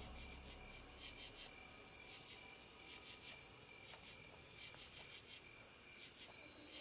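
Faint night insect chorus: crickets chirping in quick repeated pulses, with a higher, thin trill that comes and goes every couple of seconds.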